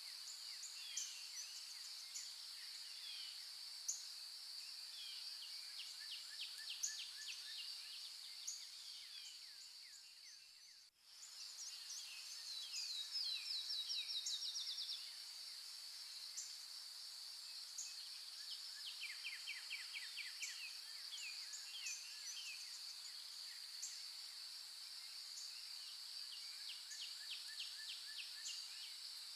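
Natural outdoor ambience: a steady, high-pitched insect drone with many short bird chirps and trills over it. About a third of the way in, the sound briefly fades out and comes back, followed by a louder rapid trill of repeated notes.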